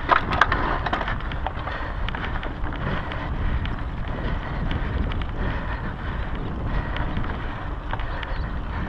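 Wind rumbling on a GoPro microphone as a mountain bike rides fast over a loose dirt trail, with tyre noise and the bike rattling. A quick cluster of sharp clicks and knocks in the first half second, then scattered clicks over the steady rush.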